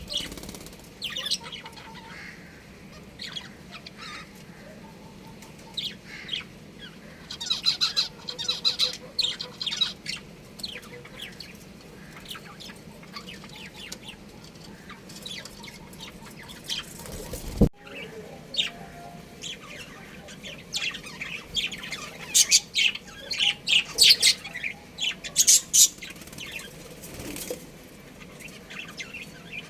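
Budgerigars chirping and chattering in quick high bursts, busiest about a quarter of the way in and again in the last third, with one sharp click just past the middle.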